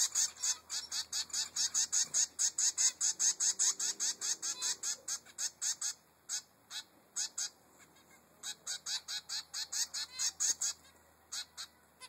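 Three-week-old zebra finch fledgling begging for food: a rapid, high-pitched string of begging calls, about five or six a second. The calls thin out to a few for a couple of seconds midway, then start again.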